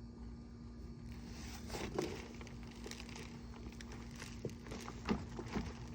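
Rustling and crackling of potato plants being torn out by hand, with a few sharper cracks in the second half.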